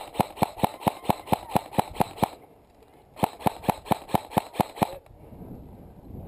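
Airsoft gun firing two quick strings of shots at about five a second, the second string starting about three seconds in, then a lull.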